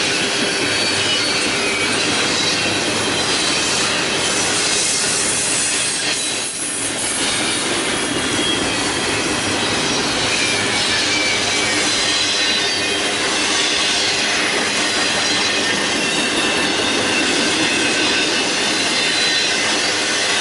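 Container cars of a long intermodal freight train rolling past, a steady rush of steel wheels on rail with thin high wheel squeal ringing above it.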